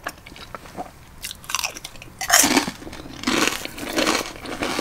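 Chips being bitten and chewed with loud crunching. A couple of sharp bites come about a second and a half in, then dense crunching runs for about two seconds.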